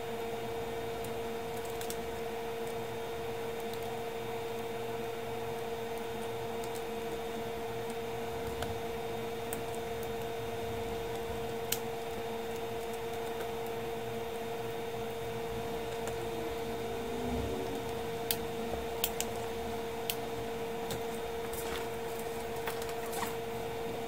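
A steady hum with a constant mid-pitched whine. Over it come a few sharp clicks, most in the second half, from the white plastic case of the camera monitor being pressed together and handled.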